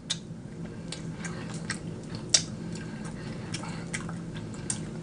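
Close-miked eating of rotisserie chicken: chewing and lip smacking as irregular wet mouth clicks, the sharpest about two and a half seconds in. A low steady hum runs underneath.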